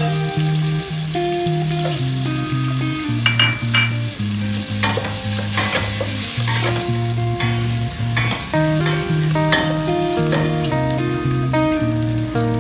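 Chopped onion and garlic sizzling in oil in a stainless steel pot, with the scrape and knock of a wooden spoon stirring them now and then. Background music of plucked notes over a bass line plays throughout.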